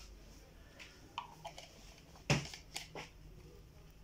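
Small plastic ink bottles and caps being handled on a table: a few short clicks and taps, with one louder knock about two seconds in.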